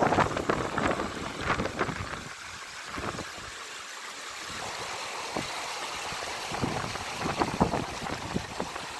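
Lake water lapping and splashing in irregular small surges, busier in the first couple of seconds and again near the end.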